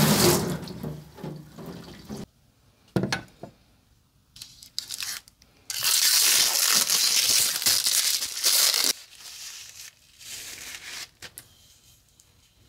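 Water spraying from a hose sprayer onto a knife blade for about two seconds. After a pause, blue plastic wrap crinkles and tears for about three seconds as it is pulled off a wooden knife handle.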